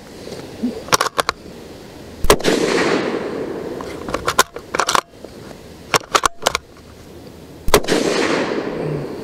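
Two shots from a bolt-action Ruger American Predator Gen 2 rifle in .223 Remington with its factory radial muzzle brake, about five and a half seconds apart, each trailing off over a second or more. Between and around them come quick series of sharp metallic clicks as the bolt is worked to eject and chamber a round.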